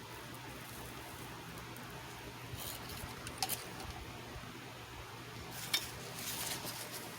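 Light clicks and scratchy rustles of small objects being handled, in two short clusters about three seconds in and again near six seconds, over a steady hiss.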